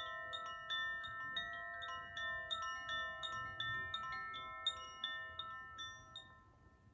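Koshi chime being swung, its clapper striking the tuned metal rods in a quick, irregular patter of sweet, bell-like tones that ring on and overlap. Near the end the strikes stop and the tones fade away.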